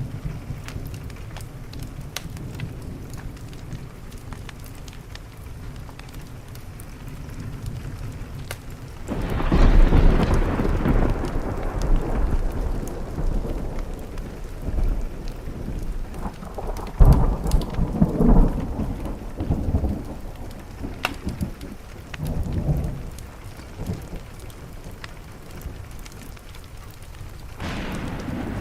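Steady rain against a window with rolling thunder: a long rumble begins about a third of the way in, with a sharper clap partway through, and another peal starts near the end.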